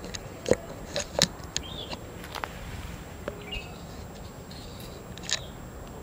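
Footsteps crunching and scraping on a dry, leaf-strewn earth path, a few sharp steps with the loudest about half a second in and again near the end. Short bird chirps sound now and then between them.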